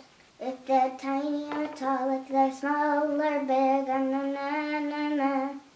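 A young girl singing a wordless tune to herself in long, held notes, with a few light taps of small plastic toys being set on a table early on.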